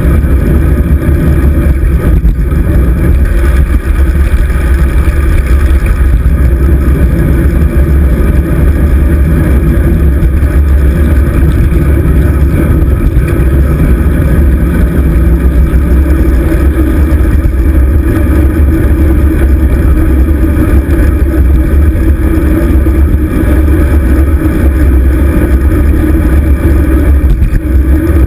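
Steady, loud rumble of wind buffeting and road vibration picked up by a GoPro Hero 2 mounted on a road bike's handlebars while riding.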